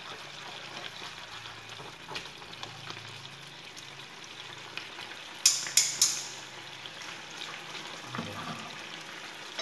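Thin mẻ (fermented rice) sauce frying in a pan over a gas flame, a steady soft sizzle while it is stirred, with three sharp crackles a little past halfway as the watery, fatty mixture spits.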